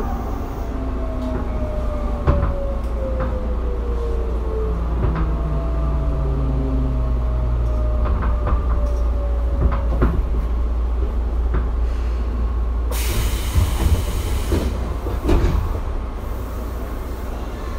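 Tobu 9050-series electric train standing at a platform: its equipment tones slide slowly down in pitch over the first ten seconds over a steady low rumble, with scattered clicks. About 13 seconds in there is a loud hiss of air, and a weaker one near the end.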